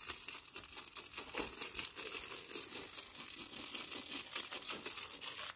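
Water from a hose spattering onto dirt ground: a steady crackly hiss.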